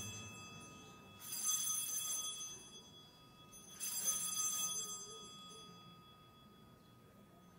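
Altar bell rung at the elevation of the chalice after the consecration: two bright, high rings, about a second in and again near four seconds in, each fading away over a second or two, with the end of an earlier ring dying out at the start.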